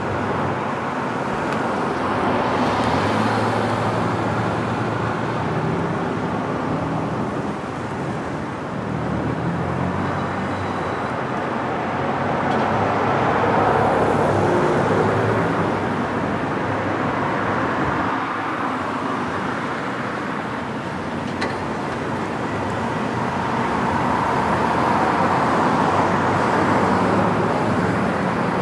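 Freight train of double-stack container cars rolling steadily across a steel girder bridge, mixed with road traffic of cars and pickups driving underneath.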